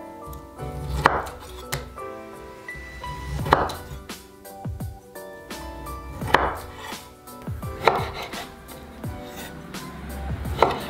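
Kitchen knife slicing through bamboo shoot on a bamboo cutting board. Each slow stroke is a short crisp cut ending in a sharp knock of the blade on the board, five strong strokes about two to three seconds apart.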